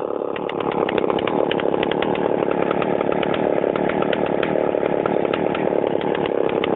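Chainsaw engine running loudly and steadily, having built up just before.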